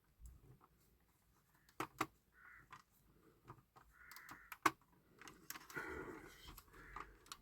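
Quiet handling of a 1/18 scale diecast model car while a stuck part is worked at: a few sharp clicks and light taps, spread out, with faint rustling between them.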